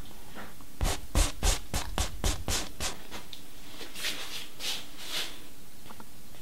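Paintbrush scrubbing across a canvas in quick scratchy strokes, about eight in a row over two seconds, then three softer strokes a little later.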